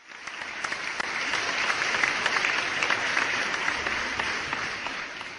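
Audience applauding, a dense patter of many hands clapping that builds over the first two seconds and dies away near the end.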